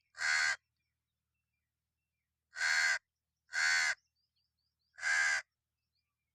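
Crow cawing: four harsh caws of about half a second each, one at the start and three more in a loose run from about two and a half to five and a half seconds in.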